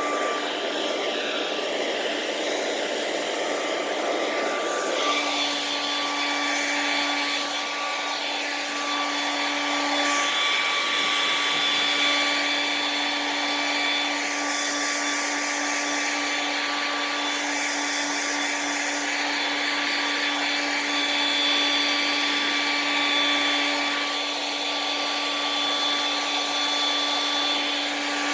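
Blow dryer running steadily, a whirring motor with a rush of air and a thin whine; about five seconds in its sound changes and a lower steady hum comes in.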